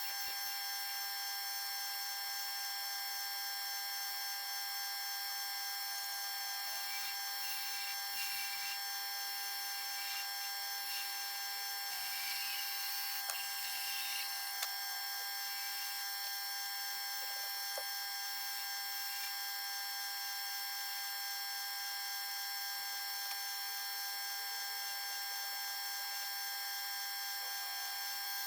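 A steady, high-pitched electrical hum, with faint rubbing or scraping sounds and a few small clicks around the middle.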